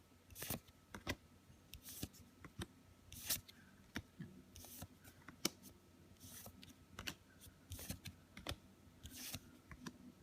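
Trading cards handled and flipped through one by one: faint soft swishes of cards sliding over each other, with small irregular clicks and taps between them.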